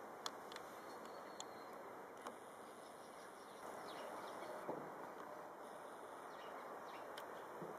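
Faint outdoor ambience: a steady background hiss with a few short chirps and clicks scattered through it.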